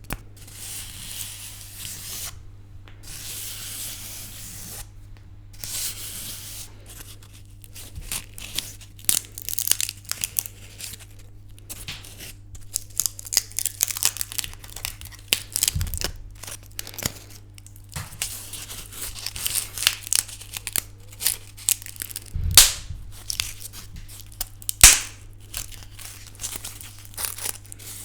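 Dry sticks and twigs handled close to the microphone. At first there are several stretches of scratchy rustling and rubbing, then a long run of crackling and sharp snaps. The two loudest cracks come about 22 and 25 seconds in. A faint steady low hum runs underneath.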